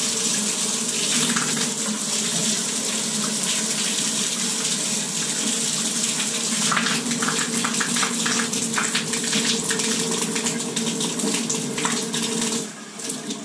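Water pouring steadily from a bare shower arm with the showerhead removed, splashing onto the shower floor, with a low steady hum beneath it. Near the end it cuts off sharply as the Moen valve is shut.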